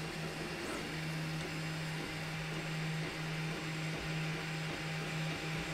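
Geeetech MeCreator 2 3D printer running a print: its stepper motors give a low steady tone that breaks and restarts every few tenths of a second as the print head changes moves, over a continuous fan hiss.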